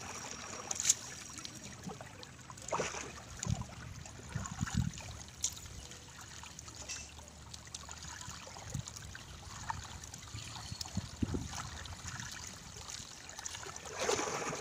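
Water trickling and dripping off a fishing gill net as it is hauled hand over hand out of the water into a small boat. A few low knocks sound along the way.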